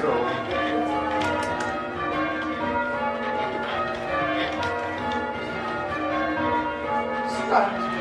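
Church bells being change rung, a steady succession of overlapping bell strokes, each ringing on, as the ringers pull the ropes in turn.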